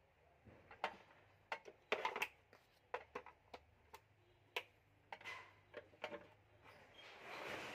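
Irregular light clicks and knocks as hands work the knobs, plastic handle and metal casing of an Akari APT-WM-300 inverter welding machine, followed near the end by a longer rustle as it is shifted on cardboard.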